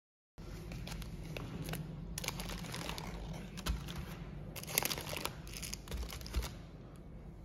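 Crinkly packaging such as plastic or paper being handled and crumpled, a steady rustle with sharp crackles here and there, easing off near the end.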